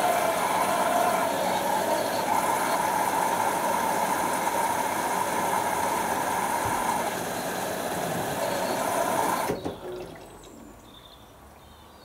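LG F1222TD Direct Drive front-loading washing machine mid-wash: water sloshing and rushing in the drum as the load tumbles, a steady loud wash noise that cuts off suddenly about nine and a half seconds in, leaving only a faint background.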